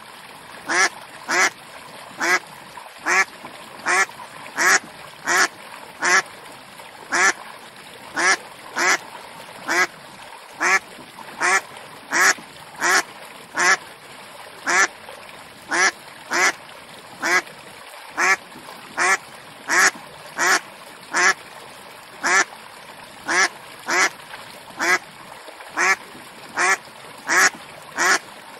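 A duck quacking over and over: single loud quacks, roughly one to two a second at an uneven pace, over a faint steady hiss.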